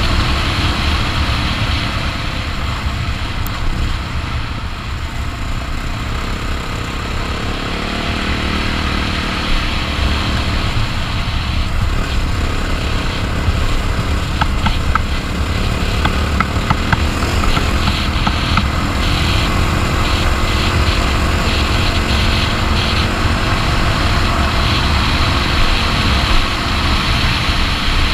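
Honda XR650R's single-cylinder four-stroke engine running at speed on a gravel track, with heavy wind noise on the microphone. The level dips briefly a few seconds in, and a few sharp ticks come through around the middle.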